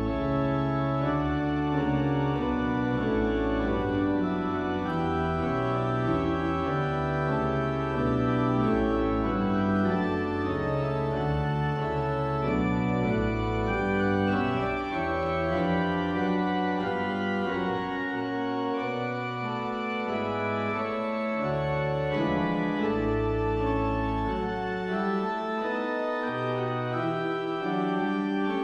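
Church pipe organ playing the postlude: full, sustained chords that move every second or so over a deep pedal bass line, which drops out twice for a few seconds in the second half.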